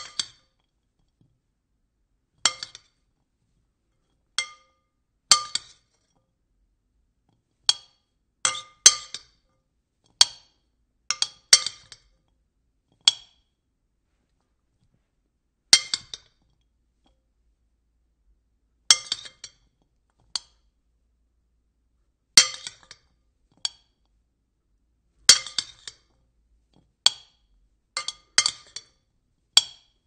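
A spoon clinking against a bowl in irregular taps, single strikes and quick runs of two or three, each with a short ringing tone, separated by silent gaps of a second or more.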